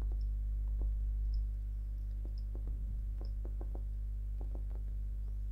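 Scattered light clicks of a computer mouse, irregular and a second or less apart, over a steady low electrical hum.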